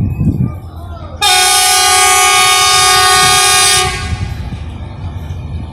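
A rail vehicle's horn sounds one long blast, starting about a second in and lasting about two and a half seconds, over a steady low engine rumble.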